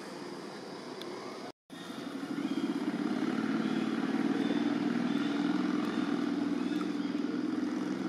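A motor vehicle engine running steadily, growing louder about two and a half seconds in; the sound cuts out completely for a split second shortly before that.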